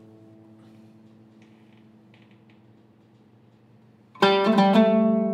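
Syrian-made oud with a cedar top and old walnut bowl: a plucked note rings on and fades away. About four seconds in, playing starts again with a quick run of plucked notes.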